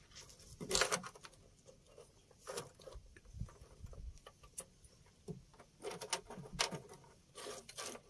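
Hands working at the ignition switch wiring: irregular faint rustles and small clicks, with a few louder scrapes about a second in and again near the end.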